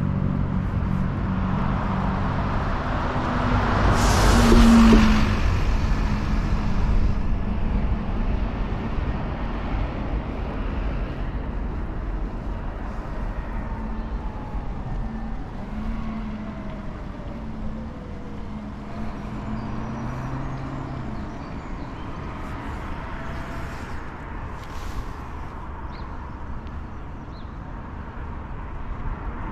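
A car passes close by, its tyre and engine noise swelling to a peak about four to five seconds in and then fading. Under it runs a steady low rumble of traffic.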